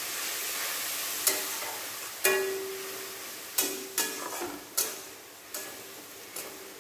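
Metal spatula stirring masala paste and water in a metal kadhai, knocking against the pan about seven times, each knock ringing briefly, over a sizzle that fades away.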